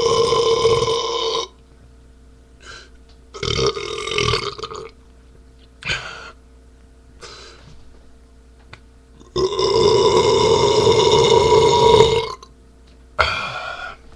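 A man belching after drinking beer: a long drawn-out belch that ends about a second and a half in, a few short, weaker sounds, another long belch from about nine to twelve seconds, and a shorter one near the end.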